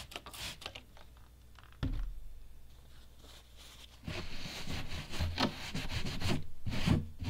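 A trigger spray bottle squirts cleaner a few times, and a dull thump follows about two seconds in. From about four seconds on, a cloth rubs back and forth over the sanded surface of a plastic kerosene can.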